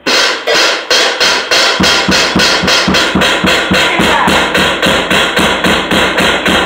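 Drum kit played in a steady, fast rhythm of about four strikes a second over a bright, continuous ringing; deeper drum hits join the pattern about two seconds in.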